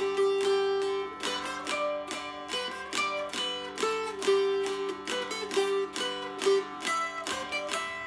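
Mountain dulcimer of painted poplar and northern cherry, 25-inch scale, strung with a doubled melody string, strummed in a tune: quick, even strums over a steady drone, with the fretted melody notes changing above it.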